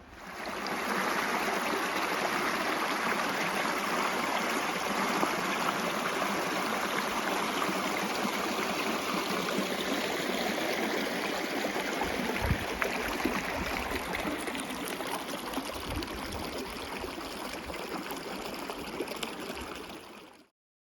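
Rushing water, a steady, even wash of sound that fades in at the start and cuts off shortly before the end.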